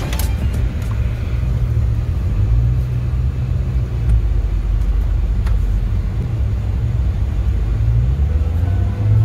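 SUV engine running under load, heard from inside the cabin as the vehicle is pulled through deep snow on a tow strap. It is a steady low rumble, and the pitch rises briefly near the end.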